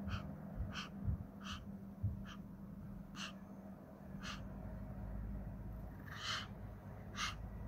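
Small dog (a Pomeranian) breathing audibly through its open mouth: short, airy breaths at uneven intervals, roughly one a second. A faint steady low hum sits underneath.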